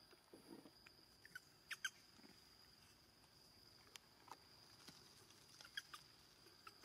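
Faint, short high squeaks from young macaques: a few about a second and a half in, another around four seconds, and a cluster near six seconds, over a thin steady high tone.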